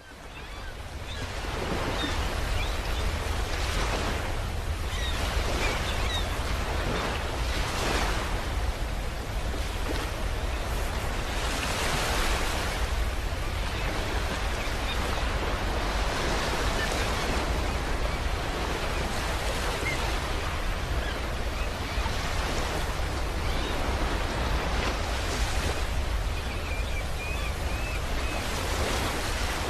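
Space sound effect presented as the star UY Scuti: a steady rushing noise over a deep low rumble, swelling and easing every few seconds like surf. It fades in over the first second or so.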